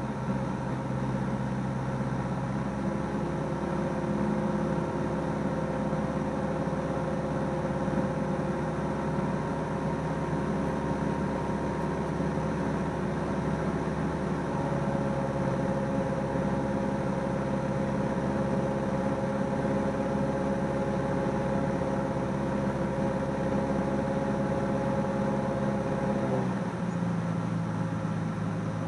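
Cessna 172S's four-cylinder Lycoming engine and propeller droning steadily, heard from inside the cabin. Near the end the engine note drops in pitch as the engine speed is reduced.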